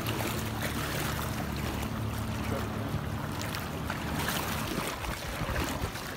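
Floodwater sloshing and splashing as a person wades through it, over a steady low motor hum that fades after about four seconds.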